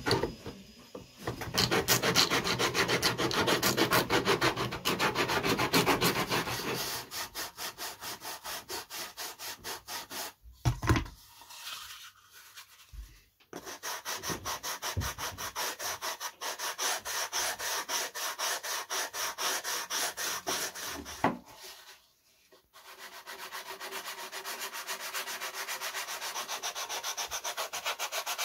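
Hand sanding block rubbed back and forth on balsa wood in quick, rhythmic strokes, sanding the hatch flush. The strokes pause briefly about ten seconds in, with a few light knocks, and again a little after twenty seconds.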